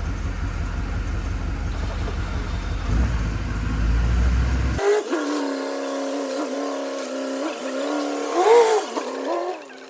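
Car engine running: a low rumble for the first half, then after an abrupt change a steadier, higher engine note that rises briefly about a second before the end.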